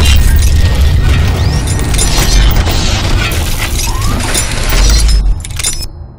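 Cinematic logo-reveal sound effects: a sudden heavy boom with a deep rumble under a dense spray of shattering, clinking debris. It dies away about five and a half seconds in.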